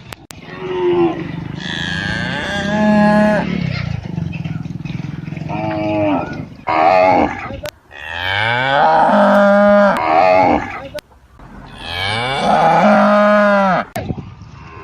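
Cattle mooing: about four long, loud moos in a row, the longer ones rising in pitch and then holding steady.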